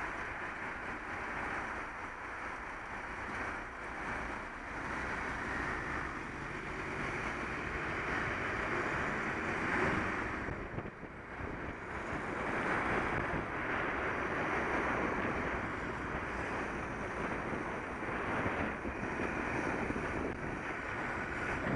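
Wind rushing over the microphone of a camera on a moving bicycle, rising and falling, with the noise of road traffic underneath.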